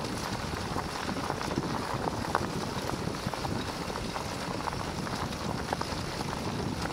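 Steady rustling noise with many small crackles as a sled dog runs pulling a wheeled cart along a leaf-covered dirt trail, picked up by a camera on the dog's harness with its fur brushing against it.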